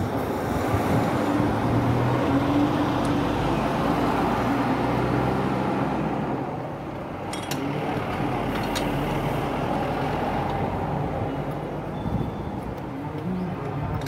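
Steady motor-vehicle engine and traffic noise with a low, shifting hum, and a few light clicks about halfway through.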